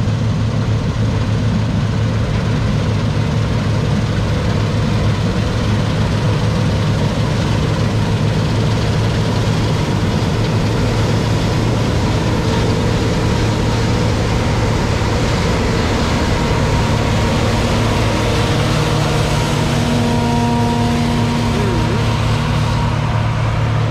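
Large farm-machinery diesel engine running steadily under harvest work, with a deep steady hum; a few faint whining tones come and go over it in the second half.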